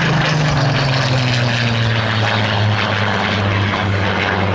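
Supermarine Spitfire's V12 piston engine droning steadily as the fighter flies past. Its pitch drops over the first second or so, then holds.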